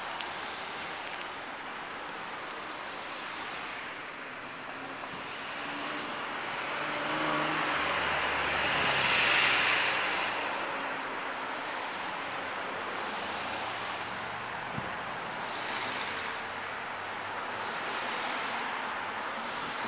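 Steady rush of street traffic and air noise heard from a moving bicycle in slow city traffic. A pickup truck passing close alongside about nine seconds in makes the loudest moment, its engine and tyres swelling and then fading.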